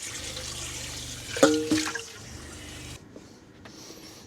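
Tap water running into a small sink while a mixing bowl is rinsed, with a low hum underneath. The bowl knocks once against the sink about a second and a half in, and the water shuts off about three seconds in.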